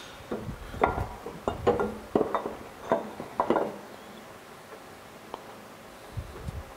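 Metal belt pulley clinking and knocking against its keyed shaft and the surrounding casting as it is worked into place by hand: a string of light, sharp knocks through the first half.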